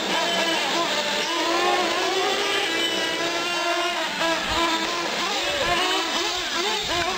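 Several 1/8-scale nitro R/C trucks' small two-stroke glow engines racing around a dirt track. Their high-pitched engine notes overlap, each rising and falling in pitch as the trucks rev up on the straights and back off into the turns.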